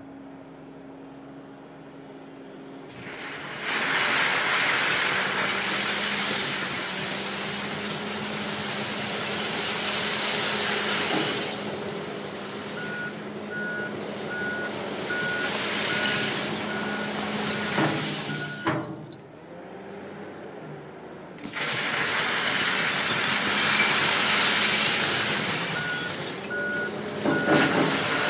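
Komatsu WA320 wheel loader working a pile of broken bottle glass: its diesel engine running under load with the crunch and grind of glass, loud from about three seconds in. Its reversing alarm beeps about twice a second in two spells, one near the middle and one near the end.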